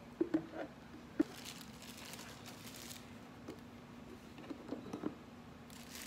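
Light plastic clicks and knocks as the water tank of a Levoit humidifier is lifted and seated back on its base, with soft rustling of plastic wrapping in between.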